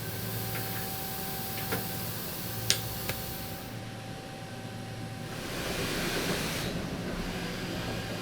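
Machine-shop ambience: a steady machine hum with a faint steady tone, a few sharp clicks about two and three seconds in, and a rush of hiss that swells and fades around six seconds in.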